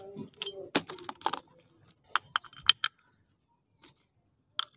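Metal motorcycle clutch parts and a clutch puller tool clicking and clinking as they are handled and fitted together. A cluster of sharp clicks comes in the first second and a half, then four quick clicks a little after two seconds in, and one more near the end.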